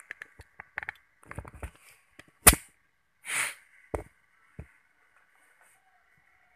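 A Sharp Ace Deluxe air rifle fires a single shot, a sharp crack about two and a half seconds in. It is preceded by small handling clicks, followed by a short hiss and two more sharp clicks.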